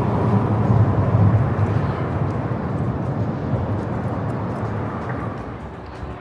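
Rumble of passing road traffic, a heavy low noise that is loudest about a second in and then slowly eases off.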